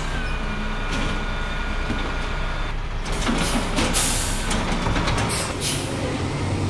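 Garbage truck sound effect: the truck's engine running steadily, with a steady high whine for the first few seconds, then bursts of hiss and clatter around the middle as the truck loads.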